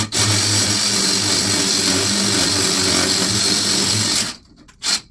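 Cordless hammer drill with a 3/8-inch masonry bit drilling through a concrete block. It runs steadily for about four seconds, then gives a brief second burst near the end.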